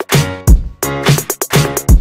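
Background music with a steady electronic beat: punchy drum hits about twice a second under pitched instrument notes.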